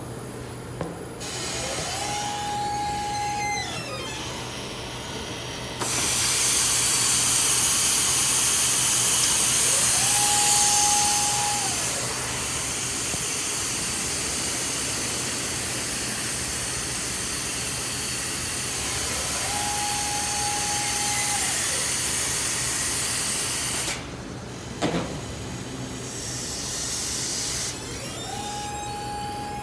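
Compressed air leaking with a loud, steady hiss from an automated warehouse system, the abnormal noise of an air leak. It starts about six seconds in and cuts off sharply near the end. Over a steady machine hum, a motor whine rises, holds and falls four times at even intervals.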